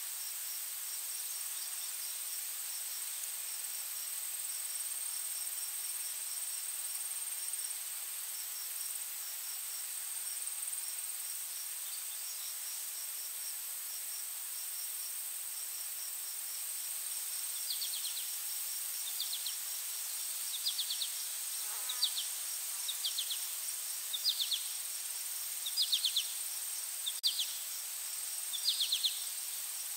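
Steady, high insect drone with a fast row of ticking insect chirps over it. About two thirds of the way through, a small bird starts calling with short chirps about once a second.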